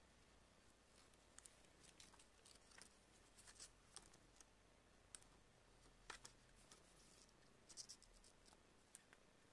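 Faint, scattered small clicks and light scrapes from tablet parts being handled, against near silence.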